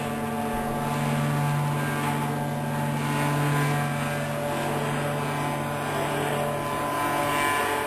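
Steady low machine hum with a constant pitch from running machinery, without distinct riveting strikes.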